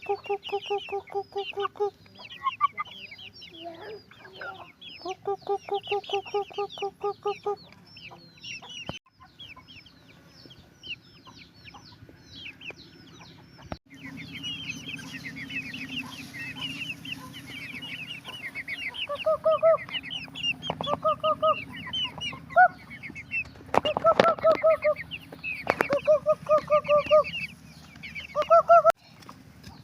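Chickens: a hen clucking in fast runs of repeated calls, with the high, falling peeps of chicks going on throughout. A few sharp clicks come about three-quarters of the way through.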